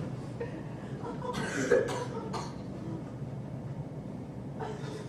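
A person coughing: a short cough about one and a half seconds in, with a fainter one near the end.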